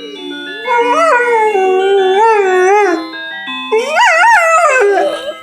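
Dog howling along to a phone's alarm ringtone: two long, wavering howls over the ringtone's melody.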